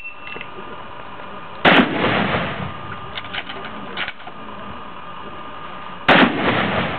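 Two rifle shots from a .375 Ruger, about four and a half seconds apart, each with a ringing echo after it. A few small clicks fall between them.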